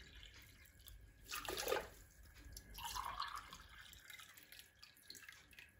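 Water poured from a glass jug into a drinking glass, faint splashing and trickling in two short spells, about a second and about three seconds in.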